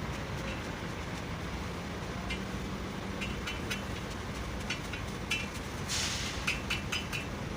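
Steady low engine-like rumble with a series of short, sharp clicks and clinks that start a couple of seconds in and come more often near the end.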